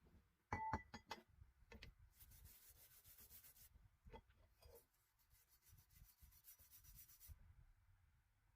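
Faint hand-rubbing strokes, like sandpaper or a cloth worked over a surface, in two stretches. A few sharp clicks and knocks, one with a short metallic ring, come about half a second in and again around four seconds in.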